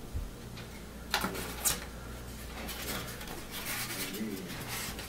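Handling noise from unpacking the rifle's parts from their box: two sharp knocks close together about a second in, then a longer stretch of rustling packaging.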